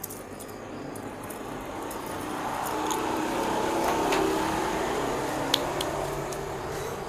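A road vehicle passing by, its engine and tyre noise swelling over about four seconds and then slowly fading, with a few sharp clicks along the way.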